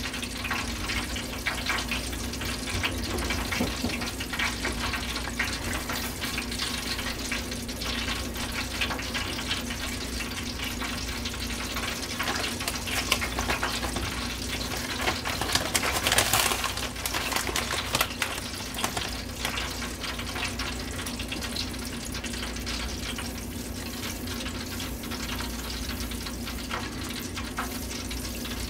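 Grits simmering and bubbling in a stainless steel saucepan while a spatula stirs and scrapes through them, with a louder stretch about halfway through and a steady low hum underneath.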